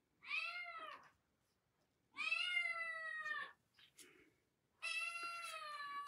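Domestic cat meowing three times, the last meow long.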